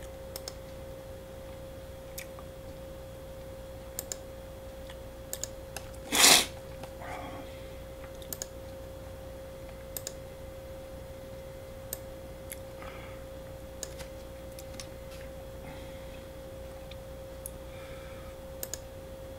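Scattered clicks of a computer mouse and keyboard, one every second or two, over a steady hum. One loud, short noise about six seconds in.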